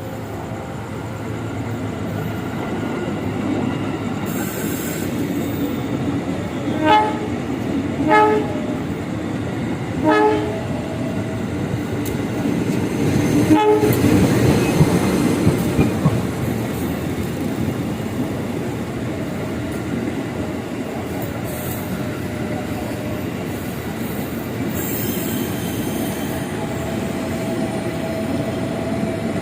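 A KRL Commuter Line 205-series electric train running past with steady wheel and motor noise, sounding four short horn toots spaced a second or two apart, the last the loudest. A faint wheel squeal comes in near the end as it runs into the station.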